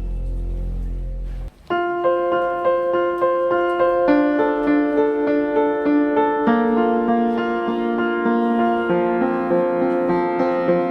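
Background music: a low sustained track that cuts out about a second and a half in, then a piano melody of even, repeating notes.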